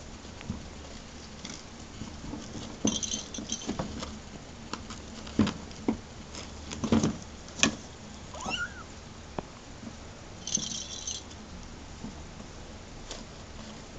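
American Curl kittens scampering and tussling on a padded pen floor: soft paw patters and light knocks, with two short bursts of bell jingling from a lattice ball cat toy, about three seconds in and again at about ten seconds. About midway comes one brief rising kitten squeak.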